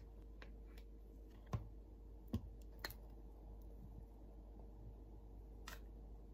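A kitchen knife slicing canned luncheon meat out of its can over a plastic cutting board: a few short taps and clicks, the two loudest about a second and a half and two and a half seconds in, over a faint steady hum.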